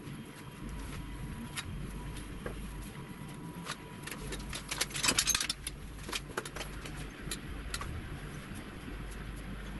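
Pencil and pen working on a graph-paper notebook, heard close: scattered light taps and scratches, with a louder, denser cluster of scratching and paper handling about five seconds in. A steady low hum runs underneath.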